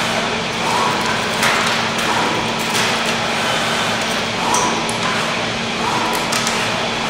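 Zünd digital flatbed cutter running: a steady rushing noise and hum from the machine, with short tones recurring about once a second. A few sharp knocks and clatters come through at intervals.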